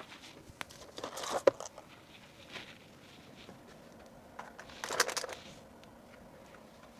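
Small items being handled and packed: light rustling and clicking taps, with the busiest bursts about a second in and about five seconds in.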